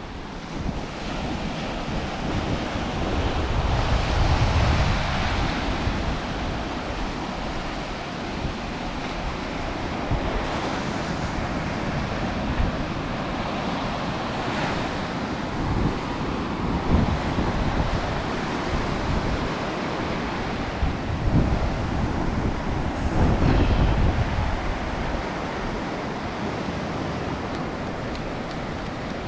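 Ocean surf washing onto the beach, with wind buffeting the microphone; the surf swells louder a few seconds in and again later.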